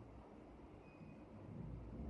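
Near silence: a faint low background rumble that grows a little louder near the end.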